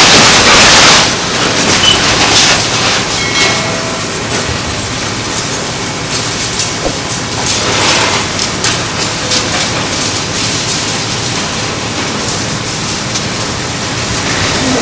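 A bulldozer working: a steady rumble and clatter with scattered knocks, and a louder rush of noise in the first second.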